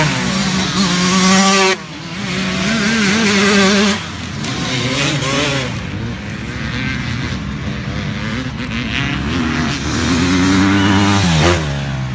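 Motocross dirt bike racing past at full throttle. The engine's pitch climbs, then drops sharply at each gear change: about two seconds in, about four seconds in, and again near the end.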